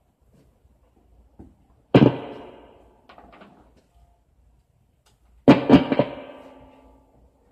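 Electric guitar strummed, one chord about two seconds in that rings and fades, then a quick few strums about five and a half seconds in that ring out.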